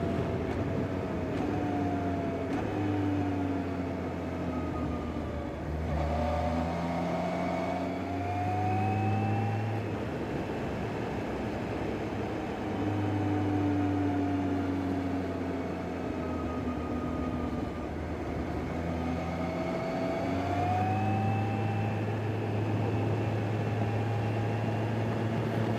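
Kawasaki Z H2 SE's supercharged inline-four engine running at low road speed, its pitch sliding down and back up several times as the rider eases off and rolls on the throttle.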